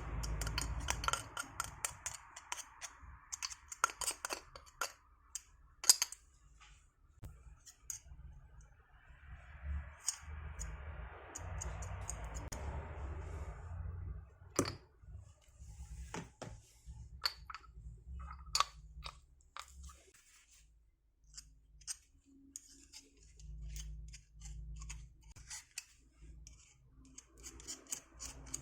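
Small metal parts of an electric impact wrench's hammer mechanism clicking and tapping as they are greased and fitted back together by hand, with a few sharper knocks and a short stretch of soft rubbing.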